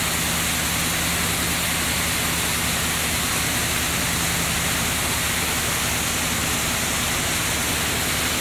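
Steady rush of water through a canal lock, with a low steady hum underneath.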